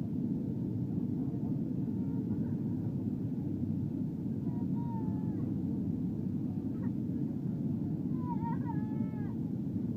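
Steady cabin noise of a passenger jet descending to land: engines and airflow in an even, low, constant rush. A faint high-pitched voice is heard about halfway through and again near the end.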